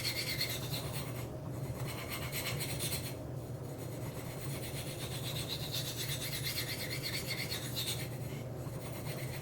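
Knife edge scraping back and forth on a Spyderco Sharpmaker medium ceramic stone in repeated strokes, with a few short pauses. The bevel is being worked to raise a burr.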